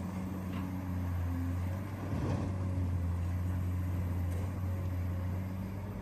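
Large Caterpillar hydraulic excavator's diesel engine running, a steady low hum.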